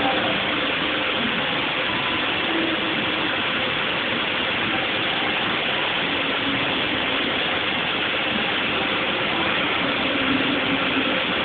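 Textile weaving machines running in a factory hall, a dense, steady mechanical clatter with no let-up.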